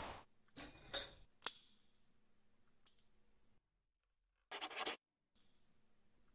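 Pencil sketching on a textured canvas board: a few short scratchy strokes with quiet gaps between, about a second in and again near five seconds, and a sharp tick of the pencil at about a second and a half.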